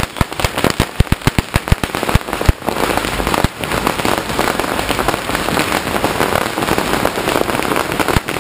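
Strings of firecrackers going off without pause. Distinct sharp bangs come one after another for the first couple of seconds, then merge into a dense, continuous crackle.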